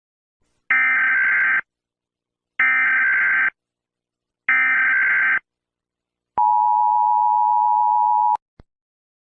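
Emergency Alert System SAME header: three bursts of digital data tones, each just under a second, followed by the steady EAS attention tone for about two seconds, which cuts off suddenly, then a faint click.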